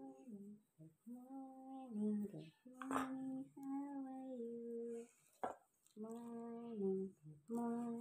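A woman singing a slow tune unaccompanied, in short phrases of long held notes that step up and down.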